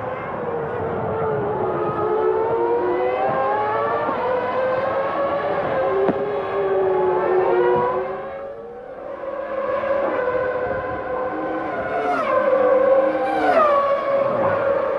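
Formula One race car engine at high revs, its pitch gliding slowly up and down with the throttle and dipping about halfway through. Near the end it falls sharply twice, as on quick downshifts.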